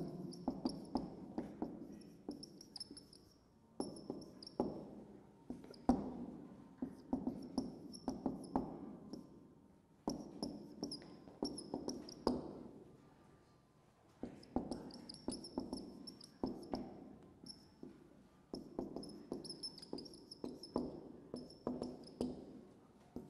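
Marker squeaking and scratching on a whiteboard as words are written: clusters of short, high squeaky strokes with brief pauses between words.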